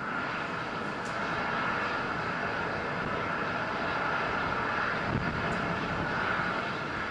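Distant rocket noise from the H-IIA launch vehicle heard from the ground: a steady rushing roar that comes up abruptly at the start and holds without a break.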